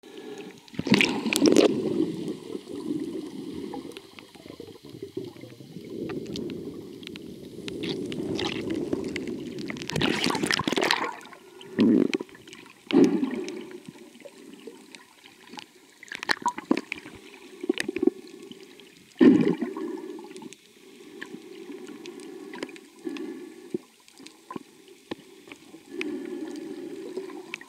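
Muffled water sound picked up by a camera held underwater: sloshing and bubbling with irregular louder surges and scattered clicks.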